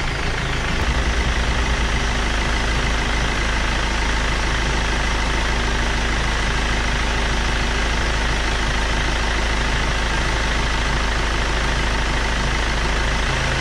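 BMW 318d's M47 2.0-litre four-cylinder common-rail diesel idling steadily, just after starting, on a test run after a water pump and thermostat replacement.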